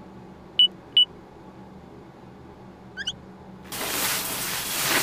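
Two short high beeps about half a second apart, a brief chirp near three seconds, then a shower head starts spraying, a steady hiss of water that runs on.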